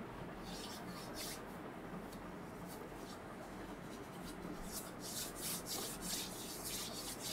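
Soft rubbing and rustling from hand and clothing movement, a scatter of short scratchy strokes that bunch together from about five to seven seconds in, over a steady low room hum.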